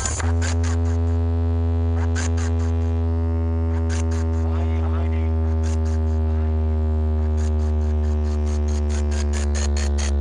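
DJ sound system playing an electronic track: a loud held deep bass tone with a sustained synth chord that slowly sags in pitch, over ticking hi-hats that come faster near the end.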